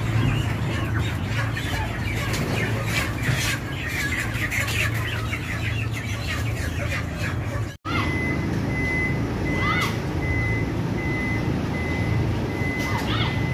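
Broiler chickens squawking and chirping densely over a steady low hum. After a cut about eight seconds in, a truck's reversing beeper sounds in a steady on-off pattern at one pitch, with a few scattered chirps.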